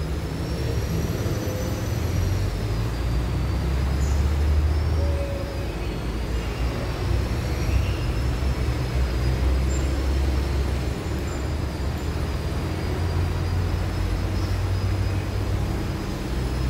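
A steady low engine rumble, with a faint high whine wavering slowly above it.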